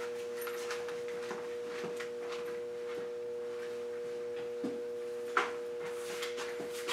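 Steady electrical mains hum, a low tone made of several pitches. Faint knocks of handling are heard over it, with one louder knock a little past five seconds in.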